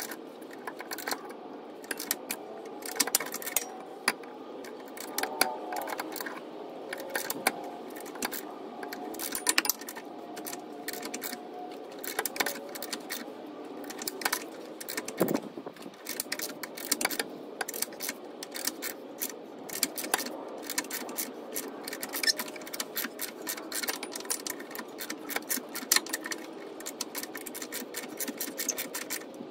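Ratchet wrench clicking quickly and irregularly as a heated, rust-seized rear shock upper mounting bolt is worked out of the frame's welded nut, backed out a little and run back in a little.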